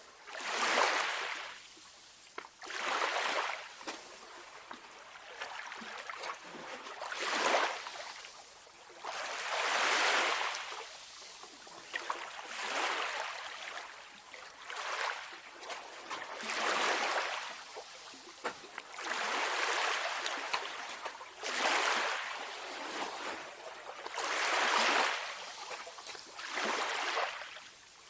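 Calm sea waves washing in and out on the shore, a hissing surge every two to three seconds.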